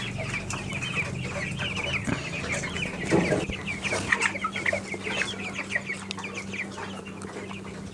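A flock of 17-to-18-day-old broiler chickens peeping and chirping: many short, high calls overlapping continuously. A steady low hum runs underneath.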